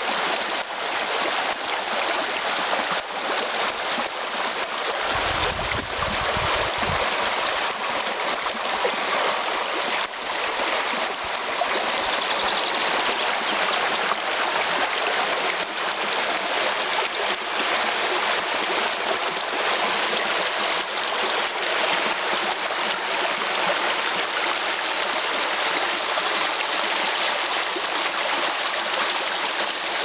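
Shallow rocky stream flowing fast over stones: a steady rushing and babbling of water.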